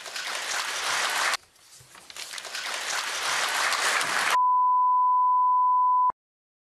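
Audience applauding in a large hall, the sound dropping out for a moment about a second and a half in. A little past four seconds the applause cuts off and a steady high broadcast test tone takes over, then stops abruptly near the end into dead silence. The tone is the signal of a lost live feed, sent with colour bars reading 'No input signal'.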